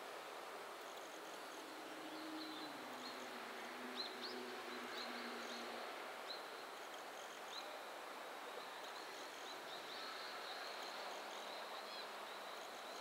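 Outdoor background noise by the railway: a steady hiss of distant ambience with short, high chirps scattered irregularly over it, and a faint low hum for a few seconds early on. No train is passing.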